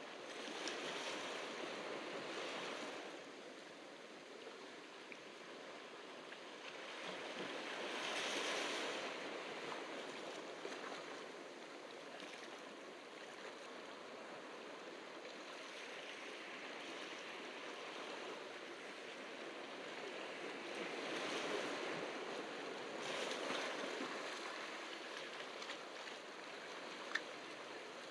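Ocean surf washing onto the shore, swelling and ebbing as each wave breaks and draws back, with the loudest swells about 8 seconds in and again around 21 to 24 seconds. A single short click sounds near the end.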